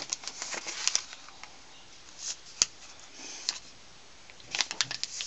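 A sheet of paper being folded and creased by hand against a wooden tabletop: scattered rustling and crinkling with short taps, a sharp click about two and a half seconds in, and a quick run of rustles near the end.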